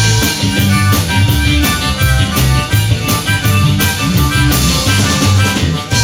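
Live rock band playing an instrumental passage: electric guitar over bass and a steady drum-kit beat.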